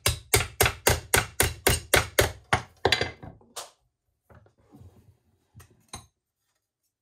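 Ball-pein hammer striking a stainless steel sheet clamped in a bench vise, folding its edge over into a 90-degree bend: a quick, even run of about four blows a second that slows and stops about three and a half seconds in. Faint handling of the vise and the metal plate follows, with a couple of light clicks.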